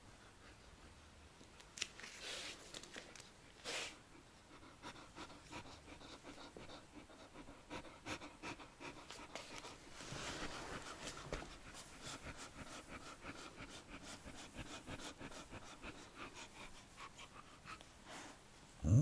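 A Samoyed panting softly while a hand rubs its fur, with faint rustling. Right at the end the dog gives a short vocal sound that rises in pitch.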